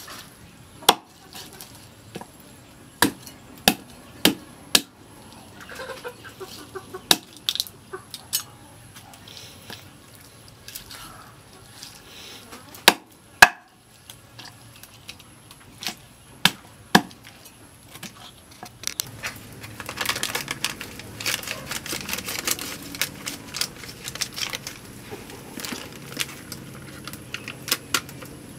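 A cleaver chopping raw chicken on a thick wooden chopping block: single sharp chops at uneven intervals. About two-thirds of the way in this gives way to a dense crackling rustle of a plastic packet as frying powder is shaken out into a plastic bowl.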